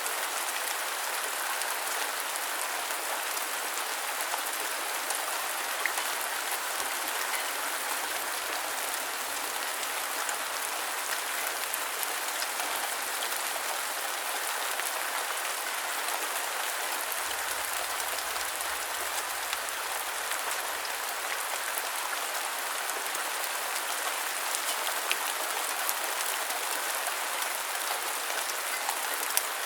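Steady rain falling and pattering on surfaces, an even hiss with scattered drop ticks.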